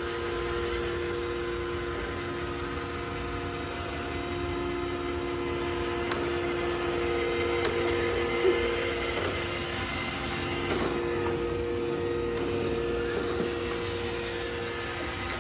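iRobot Roomba i7+ robot vacuum running with a steady motor hum, with a single light click about eight seconds in.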